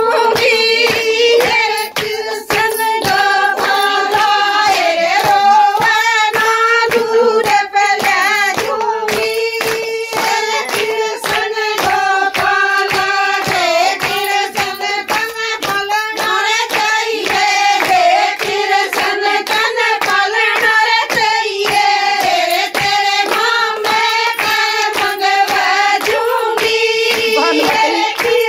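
Women singing a Haryanvi folk bhajan to Krishna and Radha, with many hands clapping a steady beat, about two to three claps a second.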